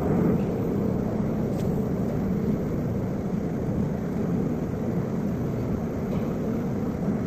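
Enamel coating machine for water heater tanks running, a steady low machinery rumble and rush with no breaks.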